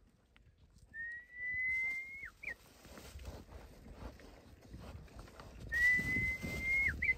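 Two long, high whistles, the second a repeat of the first. Each is held for over a second with a slight upward glide, then drops sharply and ends in a short upward flick. A low rustling noise builds underneath in the second half.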